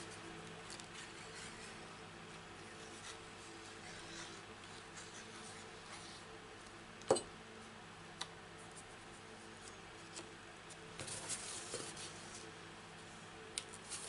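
Cardstock being handled and moved on a craft mat: faint paper rustling and light ticks over a low steady hum, with one sharp click about halfway through and a spell of rustling a few seconds before the end.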